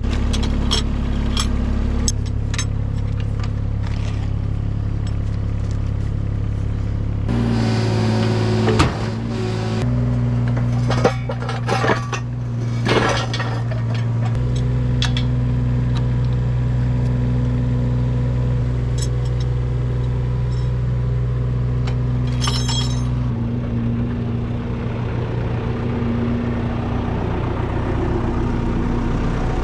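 Engine of rock-clearing machinery running steadily, its note stepping up and down a few times with changing load. Over it come knocks and clinks of rocks, and a grinding scrape about a quarter of the way in.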